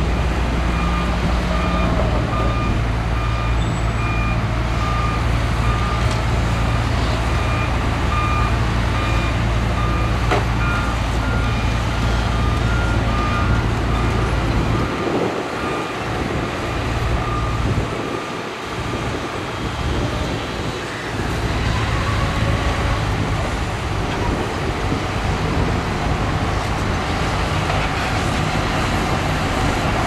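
Heavy diesel dump truck engines running, with a vehicle warning beeper sounding at a regular pace through the first half. The low engine drone drops away about halfway through and comes back a few seconds later.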